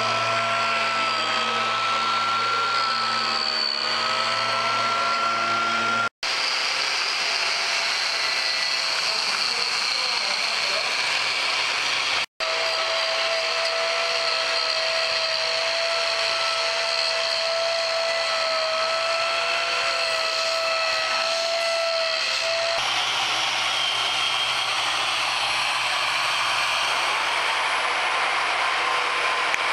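Hand-held electric carving power tools running continuously with a steady, slightly wavering high whine as they cut and grind into wood. The sound drops out briefly about six and twelve seconds in, and the tone changes near the end, as a different tool takes over.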